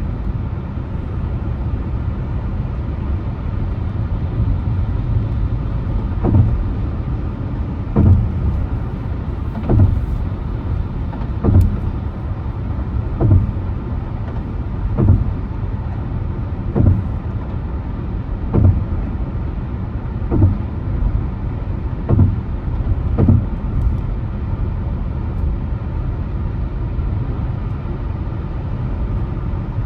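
Car driving, with a steady low road and engine rumble. Through the middle of the stretch a soft thump comes about every two seconds, ten times in all, then stops.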